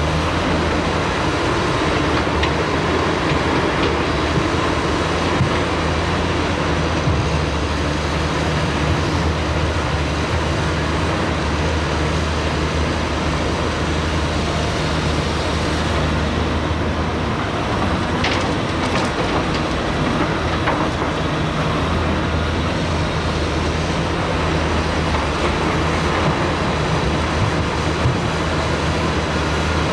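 Large tracked excavator's diesel engine running steadily with a deep drone, the drone shifting about halfway through and then settling back.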